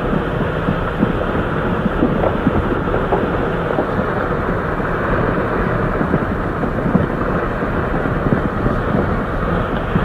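Landslide running down a mountainside: a steady low rumble of moving earth and rock, with scattered knocks and cracks throughout.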